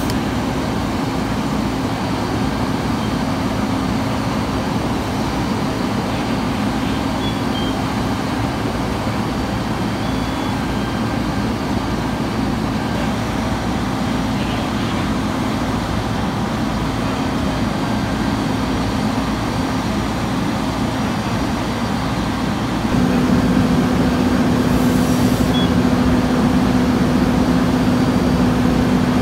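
Fire apparatus engine running steadily at the fireground with a constant drone, which steps up louder about two-thirds of the way through.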